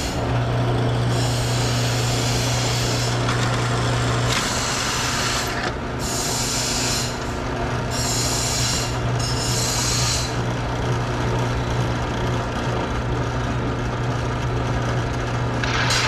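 Drill press motor running with a steady hum while its bit cuts a series of rivet holes through aluminium sheet and angle, each hole a short scraping hiss. About half a dozen holes come one after another in the first ten seconds or so; after that the hum carries on with lighter cutting noise.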